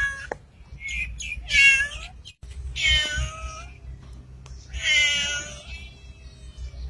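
Domestic cat meowing over and over: a drawn-out meow ends just at the start, a short chirp follows, then three more meows come about every one and a half to two seconds.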